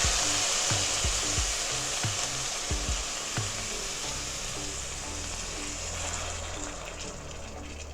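Sizzling hiss of water and coconut milk hitting a hot skillet of sautéed onions and cabbage, slowly dying down as the liquid cools the pan, with a few soft knocks in the first few seconds. Faint background music under it.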